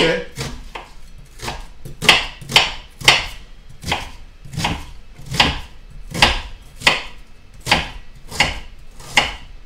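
Kitchen knife dicing an onion on a wooden cutting board: a steady run of sharp knife-on-board knocks, about three every two seconds.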